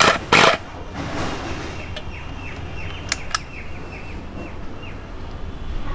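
Two short handling noises as small plastic cable connectors are fitted together, then a bird in the background gives a quick run of short falling chirps, several a second, with a couple of sharp clicks midway.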